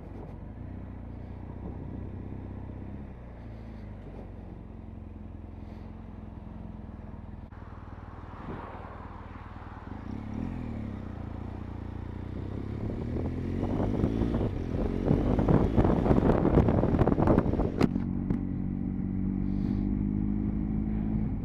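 Motorcycle engine heard from the rider's seat, running at low revs at first, then from about halfway accelerating with its pitch rising through several gear changes, loudest a few seconds before the end, and settling to a steadier cruise near the end.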